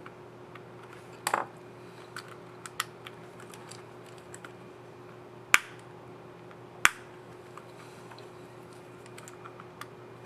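Small plastic clicks from a laptop keycap and its scissor mechanism being fitted and pressed, with two sharp snaps a little past halfway, over a faint steady hum.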